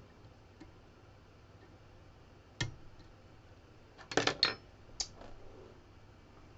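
Metal lock-picking tools clicking and clinking against a lock: a single sharp click, then a quick clatter of several clicks about four seconds in, and one more click a second later.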